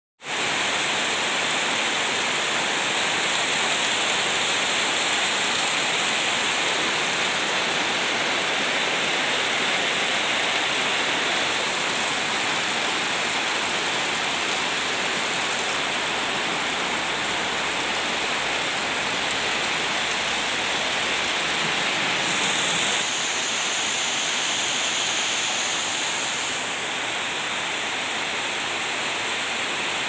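Heavy rain pouring down in a windstorm, a steady, loud hiss.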